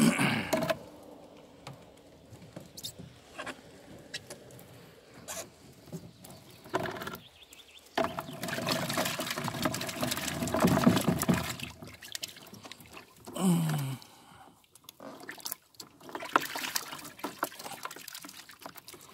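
Water streaming and dripping off a wire-mesh fish trap as it is lifted and shaken out over a plastic bucket. The splashing comes in uneven spells, heaviest for a few seconds about halfway through and again near the end.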